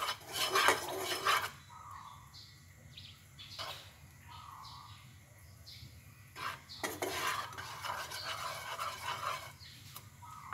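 A spatula scraping and knocking against a nonstick frying pan as it pushes a pat of butter around to melt it. The sound is loudest in the first second and a half and again from about seven seconds in.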